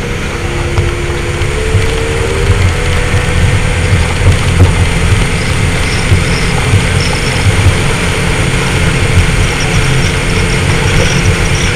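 Motorboat engine running under way, its steady drone mixed with the rush of wind and water and irregular low buffeting.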